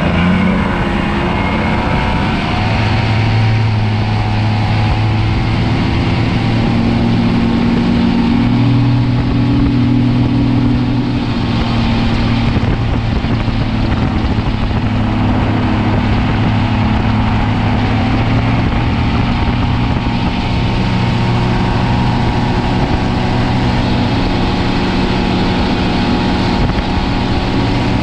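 Boat's outboard motor running steadily at speed, with the rush of water and wind. The engine's pitch shifts a little in the first few seconds, then holds.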